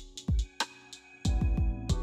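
Background music with electronic drums and a steady beat, dropping out briefly about half a second in and coming back in a little past a second.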